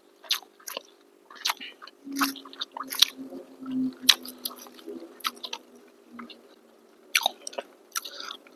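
Mouth sounds of eating: irregular wet smacks and clicks of chewing and biting, with a short lull a little past the middle.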